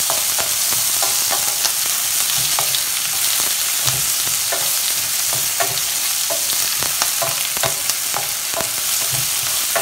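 Chopped onions and peppers sizzling in oil in a stainless steel pan, stirred with a wooden spoon that scrapes and knocks against the pan at irregular moments. The vegetables are being fried until soft.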